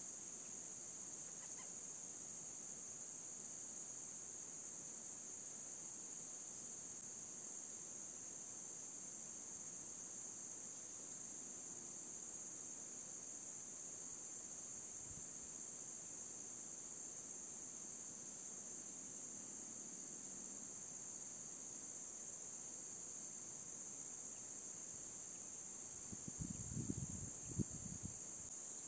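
Steady high-pitched drone of insects such as crickets or cicadas. Near the end come a few low, short thumps.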